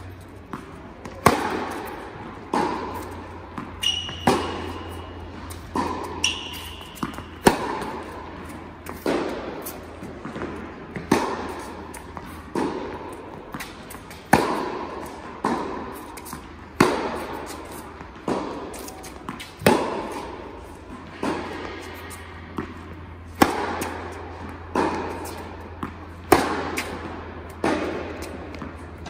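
Tennis rally on an indoor hard court: the ball popping off strings and bouncing every second or so, each hit echoing round the large hall, over a steady low hum. Two short high squeaks come a few seconds in.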